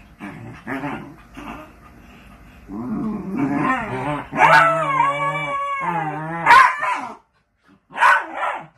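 Two dachshunds play-fighting, growling and grumbling at each other: short growls at first, then a long wavering growl-whine through the middle, and a couple of sharp yips near the end.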